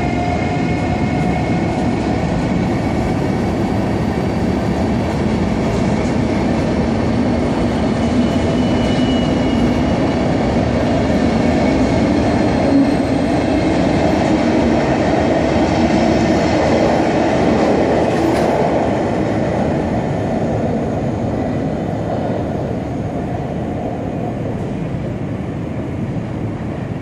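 Berlin-Warszawa-Express passenger coaches rolling past in an underground station: a loud, steady rumble with thin squealing tones from the wheels. It dies away over the last several seconds as the train clears the platform.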